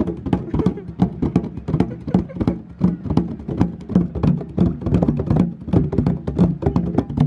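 Two people playing large skin-headed hand drums together with their palms: many quick, uneven slaps and taps, each with a low ringing drum tone.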